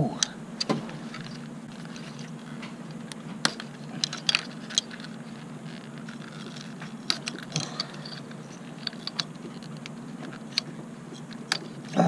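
Scattered sharp plastic clicks and small rattles as the ignition coil pack connectors are unclipped and pulled off by hand, over a steady low hum.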